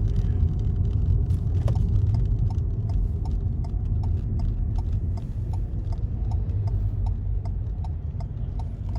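A car driving, with a steady low rumble of engine and road noise. From about a second and a half in, a turn-signal indicator ticks evenly, about two to three times a second.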